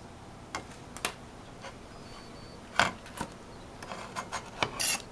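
Irregular sharp clicks and knocks, about a dozen, coming closer together in the second half, with a short hiss near the end.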